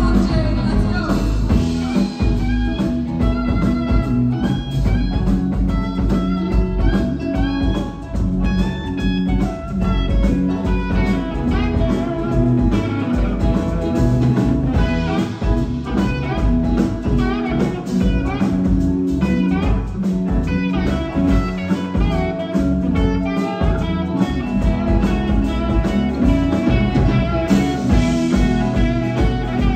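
Live blues-rock band playing, with an electric guitar taking a lead solo of bending notes over drums, bass and keyboard.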